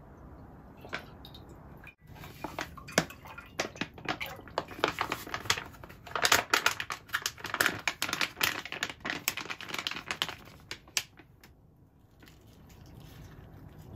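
A plastic pouch crinkling and crackling in quick, irregular clicks as it is squeezed to pour liquid into a pot of water. The crackles are thickest in the middle and die away shortly before the end.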